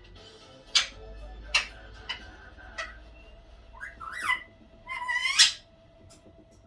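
Indian ringneck parakeet calling: three short, sharp high chirps in the first three seconds, then whistles that glide in pitch about four seconds in, and a louder rising whistle about five seconds in.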